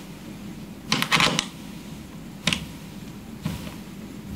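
Metal stud welding tools being handled on a steel workpiece: a quick cluster of sharp clicks about a second in, then two single clicks.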